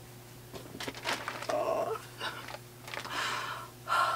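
Soft blanket swishing and rustling in several sweeps as it is swung around the shoulders and pulled over the head.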